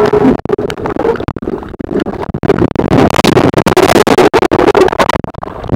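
Underwater noise picked up by the camera as it is swung about near the hull: a dense, irregular run of crackles and knocks over rushing water.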